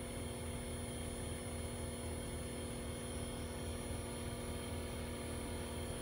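Outdoor air-conditioning unit on R-410A running: a steady hum with a low, even throb underneath.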